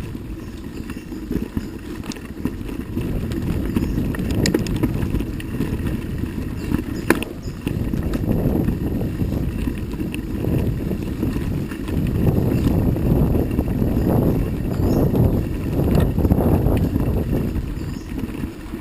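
Wind buffeting the microphone while riding a bicycle over a rough trail, a rushing low rumble that swells and fades, with a few sharp clicks and rattles from the bike.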